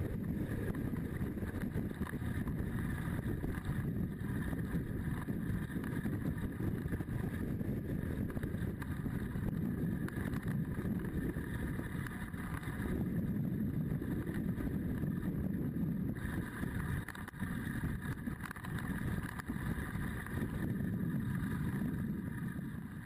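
Adventure motorcycle engine running on the move, with wind rushing over the on-board microphone; the level rises and falls a little along the way.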